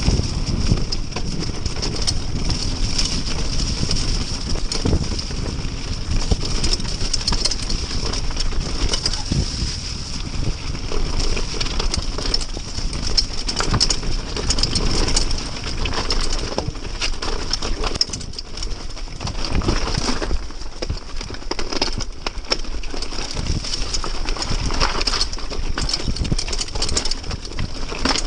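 Giant Anthem X mountain bike descending a wet, muddy, rocky track at speed: wind buffeting the action camera's microphone, tyres rolling through mud and stones, and frequent irregular knocks and rattles from the bike over the rough ground.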